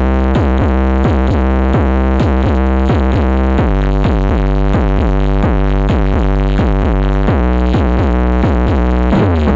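Loud electronic dance music with heavy bass and a steady, repeating beat, played through a large outdoor 'horeg'-style sound system during a sound check.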